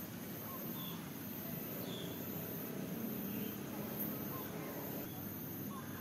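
Insects keeping up a very high-pitched pulsing trill, about one pulse a second, with a few faint short bird-like chirps and a low steady rumble beneath.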